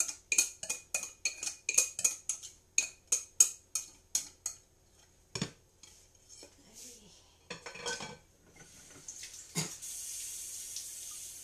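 Quick ringing metallic clinks of kitchenware, about three a second, dying out about four and a half seconds in, then a few scattered knocks. Near the end a kitchen tap starts running with a steady hiss.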